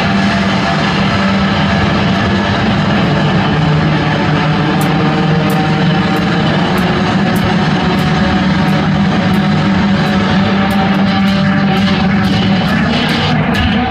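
Live noise music: a loud, dense droning wall of sound with a held low tone, joined about five seconds in by a regular clicking pulse, roughly one and a half clicks a second, that grows busier near the end.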